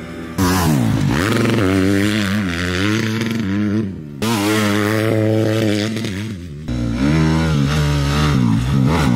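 Motocross bike engine revving hard, its pitch climbing and falling over and over as the rider accelerates and shifts around the track. The sound breaks off and restarts abruptly twice, about four and six and a half seconds in.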